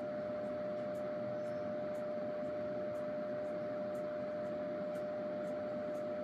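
Steady room noise: an even hiss under a constant mid-pitched hum, with faint ticks about twice a second.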